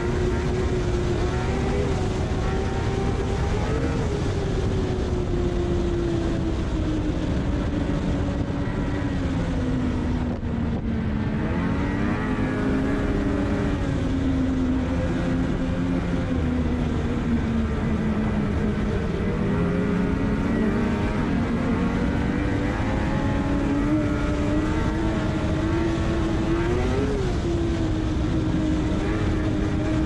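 Ski-Doo MXZ Blizzard Gen 5 snowmobile's two-stroke engine running at trail speed, its pitch sinking and climbing again with the throttle and a brief drop about ten seconds in, over a steady rush of noise.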